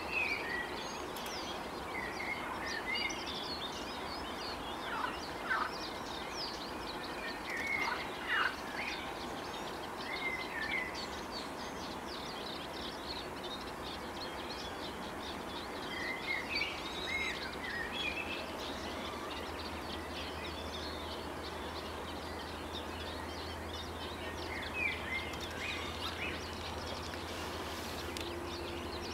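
Several birds calling in short chirps and brief phrases, coming in clusters every few seconds over steady outdoor background noise. A faint low rumble joins about two-thirds of the way through.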